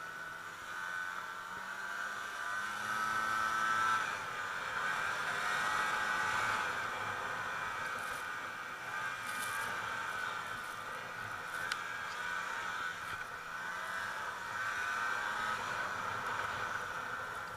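Snowmobile engine running steadily along a packed snow trail, its note rising and easing a little with the throttle, loudest about four seconds in.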